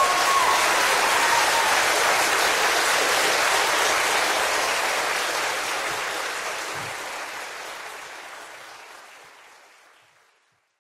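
Audience applauding after a choir performance, then fading out over the last few seconds to silence.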